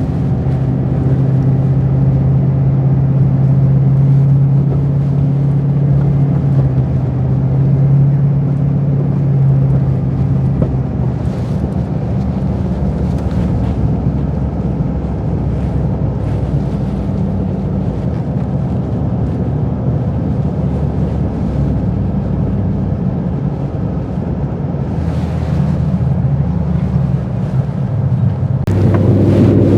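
Off-road recovery truck's engine running steadily while driving, a low drone whose pitch shifts about eleven seconds in and rises again near the end.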